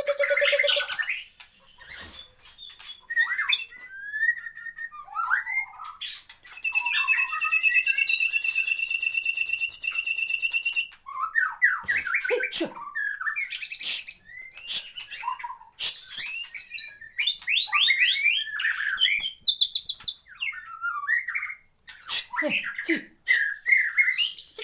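White-rumped shama singing a varied song of quick whistles, chirps and fast rattling note runs, with one long, steady trilled note lasting about four seconds about a third of the way in.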